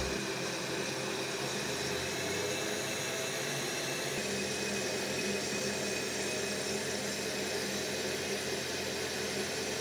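Kenwood blender motor running steadily at speed, its blades mixing thin crepe batter.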